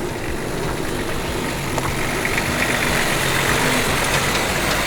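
Toyota Troop Carrier 4WD driving on a dirt track: steady engine and tyre noise.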